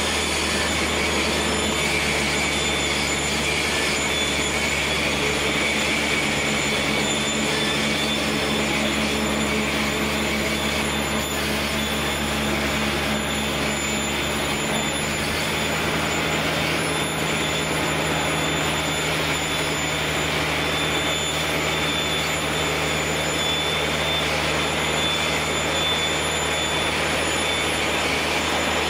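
Krone forage wagon discharging grass onto a silage clamp while tractors work the heap: a steady, unbroken machine drone of engines under load, with thin high whines from the wagon's unloading drive running through it.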